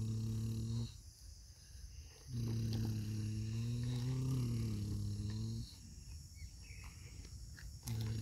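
A person humming a low, steady engine-like drone to go with the toy digging; the drone breaks off about a second in, comes back for about three seconds, and returns near the end. Faint scrapes and clicks of the toy's bucket in the dirt fill the pauses.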